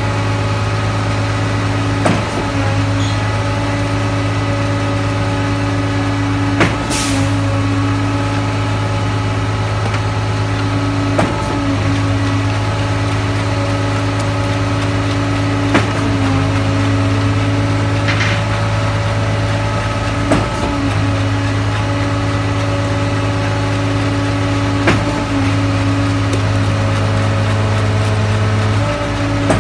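Concrete mixer truck's diesel engine running steadily at a constant pitch, with a short knock about every four and a half seconds and two brief hisses.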